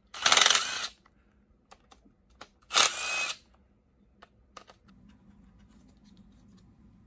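A cordless power driver runs in two short bursts about two and a half seconds apart, backing out the rear cover bolts on an LS V8 engine block. Light metallic clicks come between the bursts.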